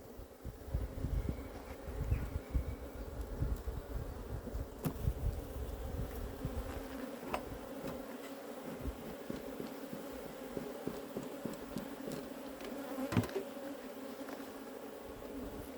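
A honeybee colony buzzing steadily around an opened hive during an inspection, a continuous hum with a few sharp clicks and some low bumping noise.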